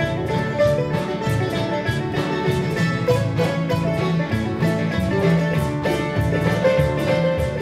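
Live country band playing an instrumental break: a plucked guitar lead over bass and drums with a steady beat.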